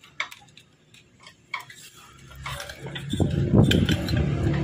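Light ticks and clinks from motorcycle parts being handled. About halfway through, a louder low hum rises underneath them.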